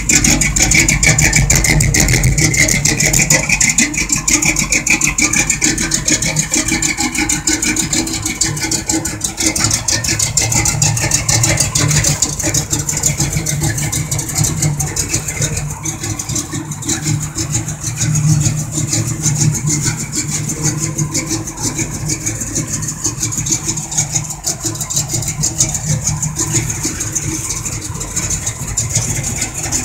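A 1984 Chevrolet Monte Carlo SS's V8 engine idling steadily, its exhaust beating in an even, fast pulse.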